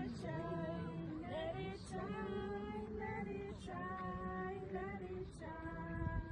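A group of women and children singing a song together without instruments, in long held notes.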